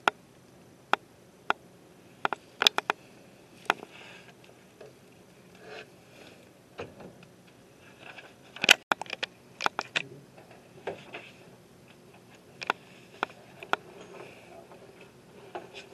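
Irregular sharp clicks, about twenty, bunched around the middle where the loudest falls, over a faint steady hum: the controls of a microfilm reader being worked as the film is moved along.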